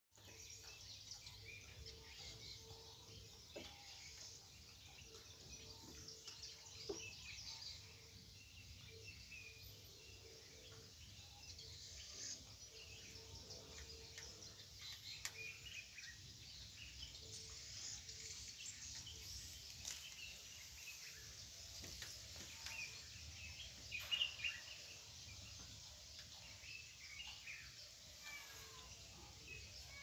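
Faint outdoor ambience with small birds chirping on and off throughout, and a few soft clicks, the loudest about three-quarters of the way through.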